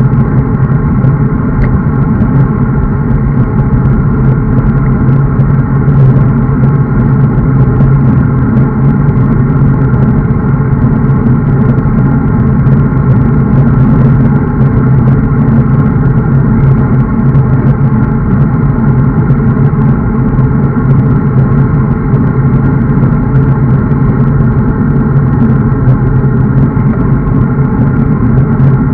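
Steady, loud rush of wind and road noise on a bicycle-mounted camera riding at speed in a group, with a constant low hum that does not change.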